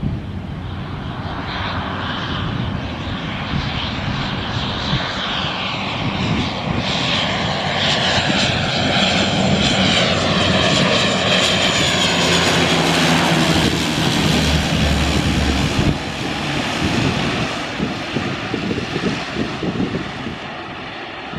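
ATR twin-turboprop airliner on final approach, its propeller and engine drone swelling as it passes low overhead. Falling tones come as it goes by, and it is loudest a little past halfway. The sound drops suddenly about three-quarters of the way in and carries on quieter as the plane descends to the runway.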